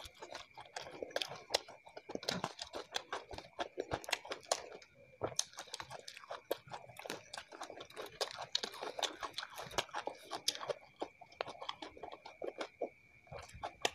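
Close-miked chewing of fried rice: many quick, irregular wet mouth clicks and smacks, with light taps of fingers picking grains off a metal tray. A faint steady high tone runs underneath.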